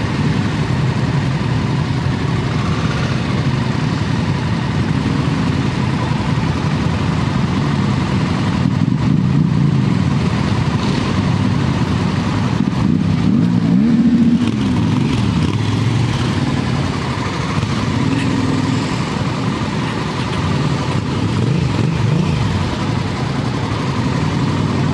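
Motorcycle engines running at low speed in a slow-moving line. Engine pitch briefly rises and falls with throttle changes, once around halfway and again near the end.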